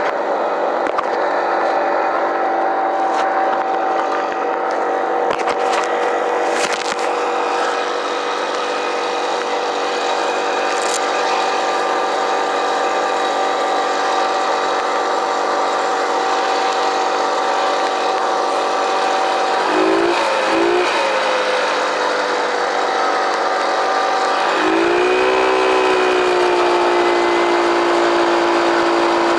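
Arctic Cat mini bike's small engine running steadily while riding. Its note dips briefly twice about two-thirds of the way in, then changes sharply and holds at a new steady pitch near the end.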